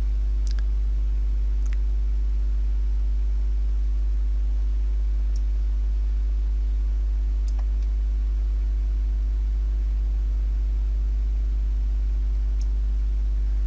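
Steady electrical mains hum picked up in the recording, a low drone with a ladder of higher overtones, unchanging throughout. A few faint clicks sound over it.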